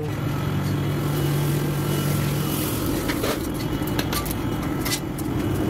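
Steady mechanical hum and rumble of a commercial kitchen, with a few short clacks of metal being handled in the second half.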